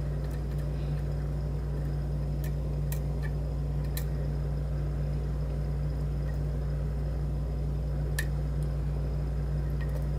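Steady low electrical hum with a few faint, sharp clicks of a lock pick working the pin stack of a challenge lock, about four scattered ticks.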